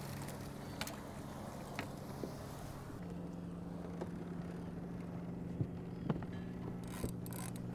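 A boat's motor humming steadily, its pitch stepping slightly higher about three seconds in, with a few light clicks and knocks.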